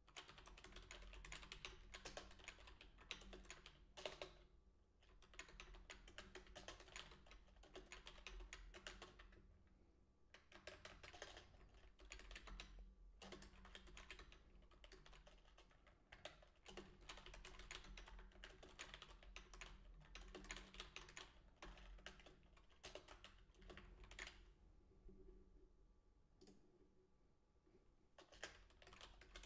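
Quiet typing on a computer keyboard, rapid keystrokes in bursts broken by short pauses, with a longer lull near the end.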